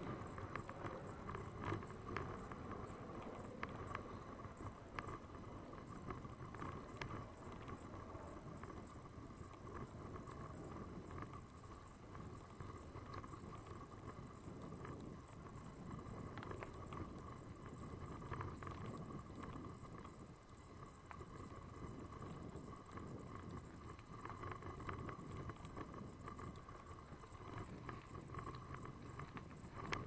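Bicycle rolling fast over a dirt and gravel trail: continuous tyre rumble with small jolts and rattles, picked up by a body-worn action camera.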